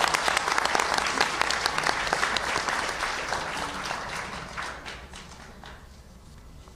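Audience applause: many hands clapping, dying away over the second half.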